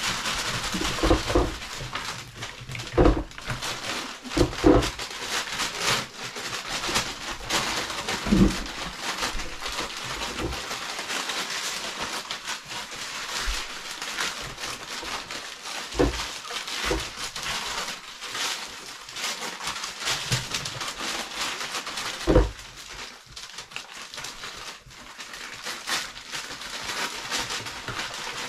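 Paper rustling and crinkling without a break as a litter of puppies tumbles about on it and tears at it. There are occasional soft thumps.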